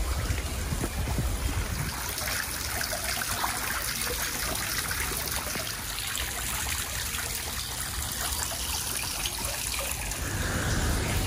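Steady splashing and trickling of running water.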